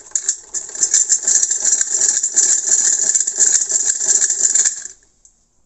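Brother hand-cranked sewing machine stitching cloth as the crank wheel is turned, its needle and mechanism running with a rapid clatter that stops suddenly near the end.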